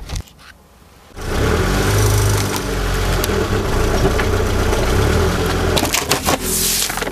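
A car's tyre crushing objects: after a few faint clicks, the car's engine comes in about a second in and runs steadily under continuous crackling and crunching, with a run of sharp snaps near the end.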